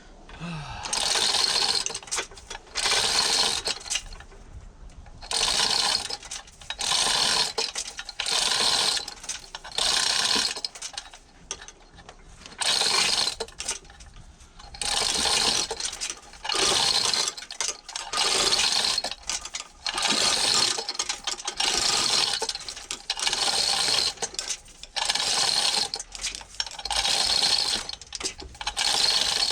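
A hand ratchet clicking in repeated strokes, about one stroke a second, with a couple of short pauses.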